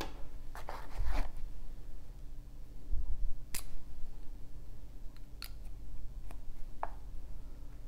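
Scattered small clicks and taps of a metal travel watercolor brush being handled and its metal cap pulled off, with a couple of soft knocks and a brief small metallic ring near the end.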